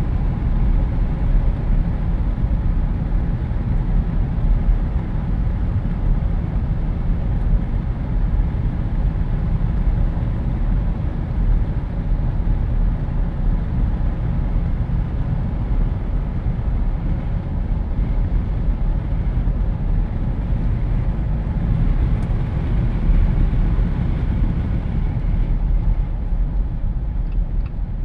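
Steady wind rush and low rumble of road and engine noise inside a Jeep Wrangler driving with its windows down.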